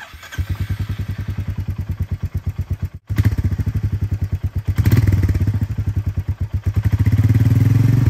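Royal Enfield Meteor 350's single-cylinder engine running through its stock exhaust with the catalytic converter still fitted, a steady, even thump of firing pulses. The revs rise briefly about five seconds in and again near the end.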